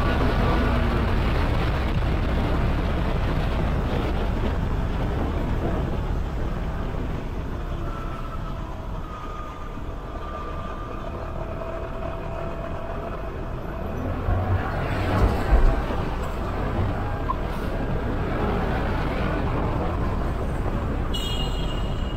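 Riding noise of a Honda SH350i scooter moving through city traffic: a steady rush of wind and road noise over the engine, with a few low thumps about fifteen seconds in.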